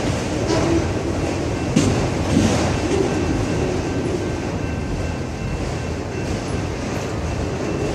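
Autorack freight cars rolling past: a steady rumble of steel wheels on rail, broken by a few sharp clacks as the wheels cross rail joints.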